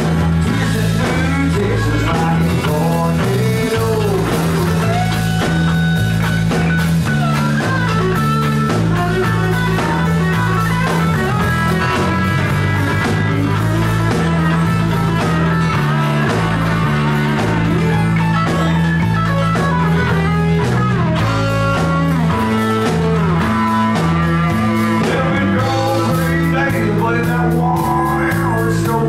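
Live outlaw country band playing an instrumental stretch: electric and acoustic guitars over a bass line and drums, loud and steady throughout.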